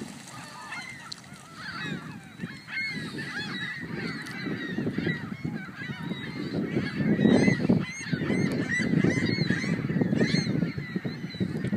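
A large flock of gulls calling: many overlapping short, arching cries, a dense chorus that grows louder from about halfway through. A low rushing noise runs underneath.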